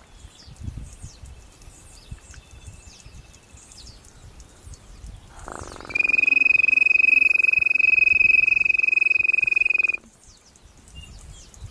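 A loud, steady high-pitched trill starts about five and a half seconds in, holds one pitch for about four seconds, and cuts off suddenly. Faint short chirps of small birds come and go around it.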